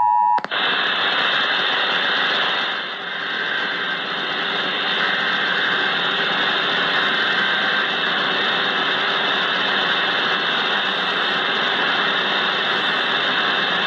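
The end of the EAS two-tone attention signal, cut off about half a second in by a steady, loud hiss of radio static that runs on unchanged.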